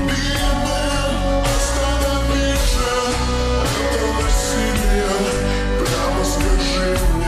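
Slowed-down, reverb-heavy pop song playing, with a steady beat, deep bass and held chords.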